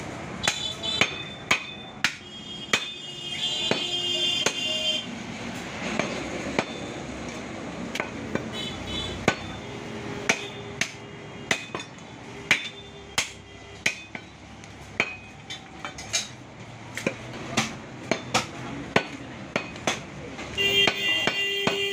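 Heavy butcher's cleaver chopping beef on a wooden stump chopping block: a run of sharp chops, roughly one to two a second.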